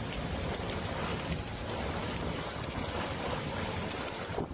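Heavy thunderstorm rain, a steady rushing hiss with faint fine patter.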